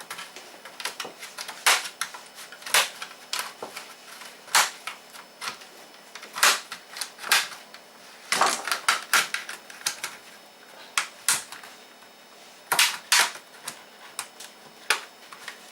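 Plastic case clips of an Asus X501A laptop snapping loose as a plastic pry tool works around the seam, in sharp, irregular clicks and cracks, some single and some in quick clusters.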